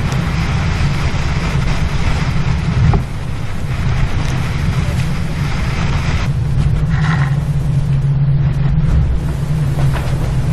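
Maxi racing trimaran sailing at speed: a continuous rush of water and wind on the microphone over a steady low hum. The noise shifts abruptly about three and six seconds in.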